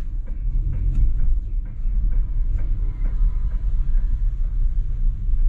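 Toyota sedan heard from inside its cabin as it rolls slowly: a steady low rumble of engine and road noise, with faint light ticks.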